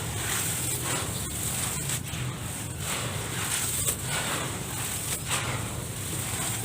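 Hands working dirt in a tub: a continuous crunchy, gritty rustle with uneven louder scrapes every half second to a second.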